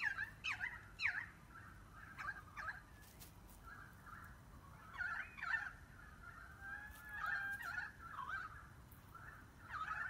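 A flock of Eurasian tree sparrows chirping: short calls in clusters, some sweeping up and down, with a few longer held notes near the middle, over a faint steady low hum.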